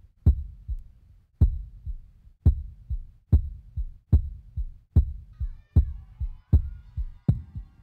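Heartbeat sound effect: deep double thumps, a strong beat followed by a weaker one, gradually speeding up from about one beat a second. About five seconds in, faint high sustained tones and sliding notes join in under the beats.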